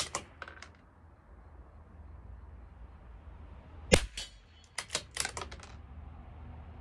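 Bolt of a CZ 457 bolt-action .22 LR rifle being worked between shots: sharp metallic clicks and clacks in a cluster at the start, then a single click about four seconds in and a quick run of clicks shortly after.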